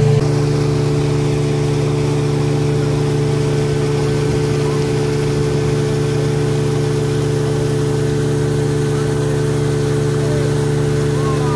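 Speedboat engine running steadily at speed, a constant drone, with the rush of water spraying along the hull.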